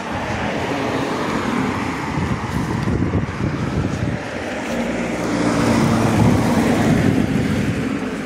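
Road traffic passing on a street, with one vehicle's engine drone growing louder and going by about six seconds in.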